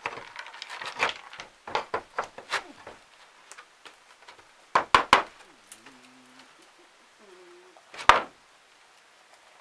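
Irregular wooden knocks and clatters from roof repair work: a quick run of them at first, a close pair about five seconds in, and one sharp, loud knock near the end.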